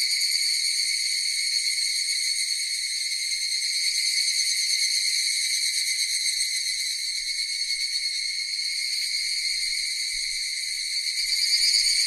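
Cicadas buzzing in a steady, continuous high drone that swells a little near the end.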